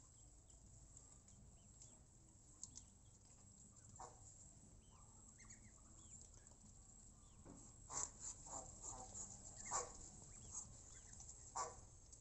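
Farmyard poultry calling: faint, high little peeps in the first half, then a run of about seven short calls from about eight seconds in until near the end.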